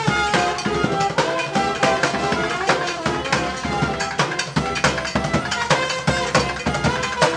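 Live brass band music: saxophones, trumpet and trombone playing over rapid, driving drum and bucket-drum percussion.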